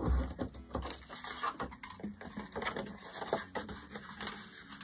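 Paper and an empty plastic bottle being handled on a tabletop: soft rustling, scraping and light irregular taps as glued paper is lifted and wrapped around the bottle.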